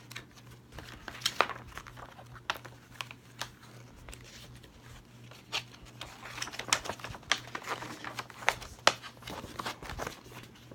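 Paper and cardboard packaging rustling and crinkling as a folded poster insert is handled and opened, with scattered sharp crackles and taps, busier in the second half. A steady low electrical hum runs underneath.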